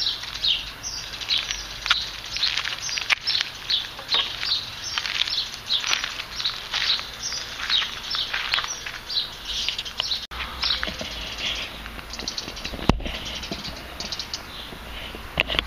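Small birds chirping and singing, a quick run of short high notes that is dense for the first half and thins out after about ten seconds. A single sharp knock about thirteen seconds in.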